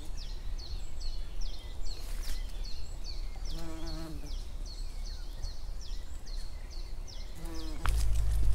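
A bee buzzing briefly among yellow flag iris flowers, about halfway through and again near the end, over a small bird's repeated short high chirps, about two a second. A low rumble comes in near the end.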